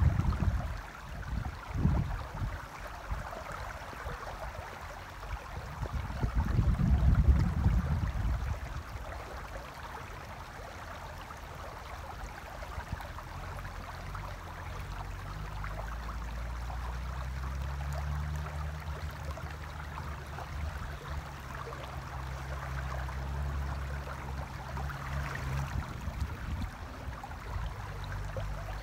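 Shallow river water running steadily over gravel and stones. Low rumbling gusts of wind on the microphone come twice in the first eight seconds and are the loudest sounds. A steady low hum runs through the middle.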